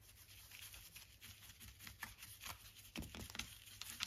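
Faint, scratchy scrubbing of a paintbrush's bristles inside a socket ratchet's head, wet with sprayed cleaner, with a few light ticks near the middle and end. This is the brush working old grease and rust out of the ratchet mechanism.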